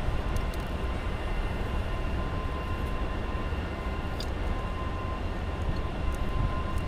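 Steady low rumble with a faint steady whine over it, and a few faint clicks as the gear lever is worked loose in its housing.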